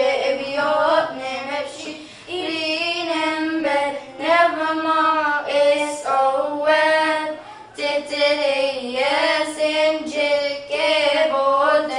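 Two young girls singing a Coptic church hymn together, unaccompanied, with long held notes that waver and slide between pitches.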